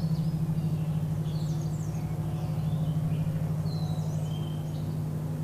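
Small birds chirping now and then over a steady low drone that pulses quickly throughout.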